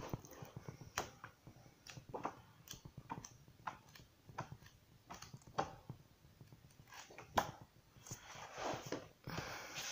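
Pages of a paperback colouring book being turned by hand: short paper flicks and rustles every second or so, the sharpest about seven seconds in, then a longer rustle of sliding paper near the end.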